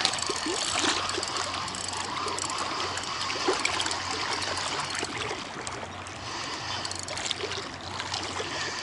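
Small waves lapping and trickling at the shoreline, with a spinning reel being wound as a hooked fish is brought in.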